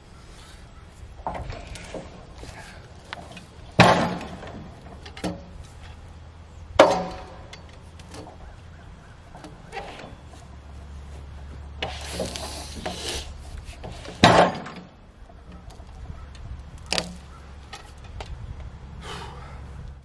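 A heavy pine log being turned over on the steel bed of a portable sawmill: hollow wooden knocks and thuds as it rolls and drops. Three loud ones come about four, seven and fourteen seconds in, with a scraping rub of wood on the rails around twelve seconds.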